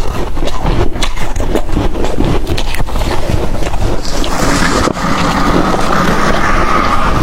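Close-up crunching of freezer frost being chewed: dense, rapid crackles. About four seconds in, these give way to a steadier rasping scrape.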